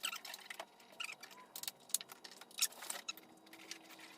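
Irregular sharp metallic clicks and clinks of hand tools working on the car door's hinge bolts as they are tightened back on.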